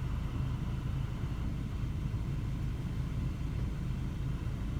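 Steady low hum and rumble of a car engine idling, heard from inside the cabin.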